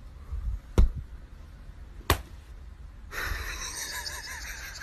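Two sharp slaps about a second apart, then a steady hiss with a faint wavering squeak.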